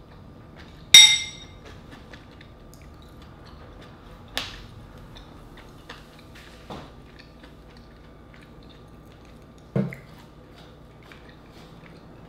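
A hard mussel shell clinks sharply against a dish about a second in, ringing briefly. Softer clicks follow at intervals, then a duller knock near the end, with faint small clicks in between.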